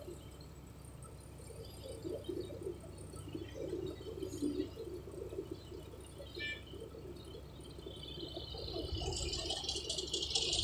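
Distant Sumitomo SH350 hydraulic excavator working, heard faintly as a steady low diesel drone with scattered knocks and rattles as it digs and swings. A high hiss swells up from about eight seconds in.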